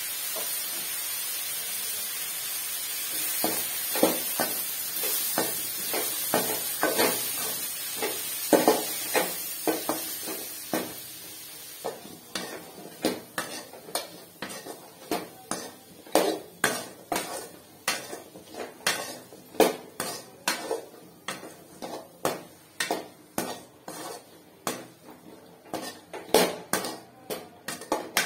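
A perforated stainless steel ladle stirring spiced cauliflower in a stainless steel kadai, scraping and knocking against the pan about twice a second. A steady sizzling hiss runs under the first half and drops away about halfway through.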